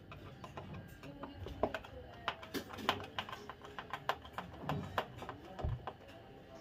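A screwdriver turning out the screws of a Singer room heater's plastic housing: a string of small, irregular clicks and scrapes.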